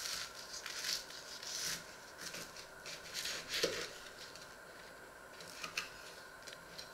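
Kitchen knife sawing through bread topped with tomato on a wooden cutting board: a series of short scraping strokes over the first few seconds, then a couple of light knocks of the blade on the board near the end.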